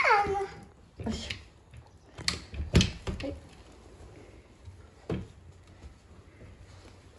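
A short cry falling in pitch at the start, then a handful of sharp knocks and rattles from a wooden baby gate being handled, the loudest about three seconds in.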